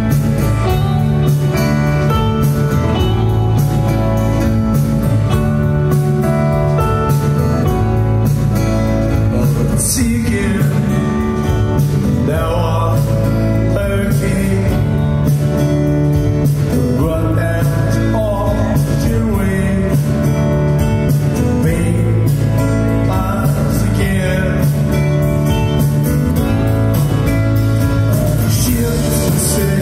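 Live rock band playing a slow song: electric guitar over sustained bass notes, with a man singing into a microphone.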